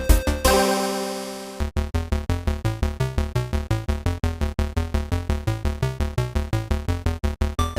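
Electronic background music with a synthesizer and a steady, quick beat; a held chord fades out about a second in before the beat picks up again.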